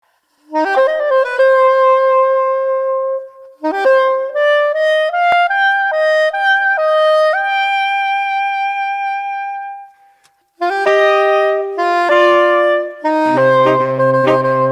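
Background music: a solo saxophone playing a melody of held notes in phrases, with two short breaks, joined by low accompanying notes near the end.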